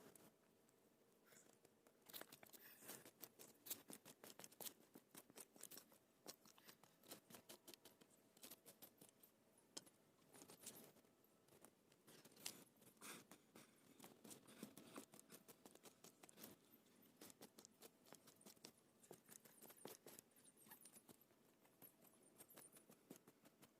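Faint, scattered quick clicks and rustles, several a second, with no steady sound behind them.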